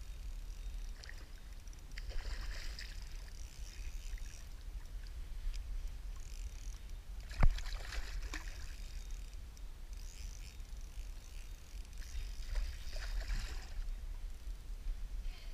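A hooked largemouth bass splashing and thrashing at the surface beside a kayak, in three bouts of splashing. A single sharp knock about seven seconds in is the loudest sound.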